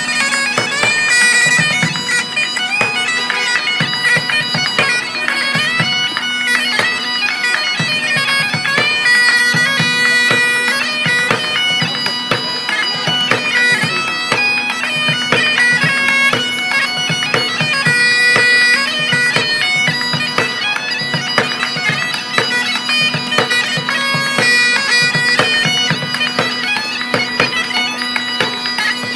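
Bagpipes playing a lively tune over a steady, unbroken drone, with a bucket-drum beat underneath.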